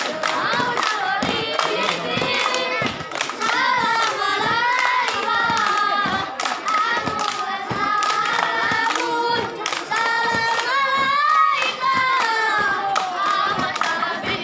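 A group of young scouts sings in unison, with sharp hand claps keeping a regular beat through the song.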